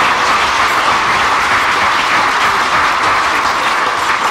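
Audience clapping steadily, a dense wash of applause in a large hall.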